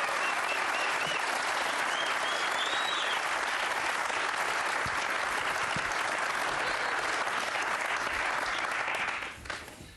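Studio audience applauding, with a few cheers over it in the first three seconds; the applause dies away near the end.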